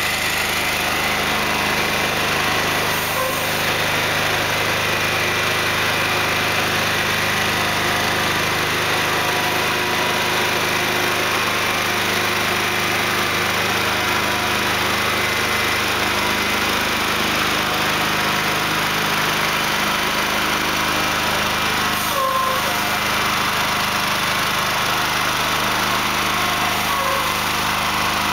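Diesel engine of a heavy-haul truck running steadily as it slowly tows a loaded Goldhofer multi-axle trailer.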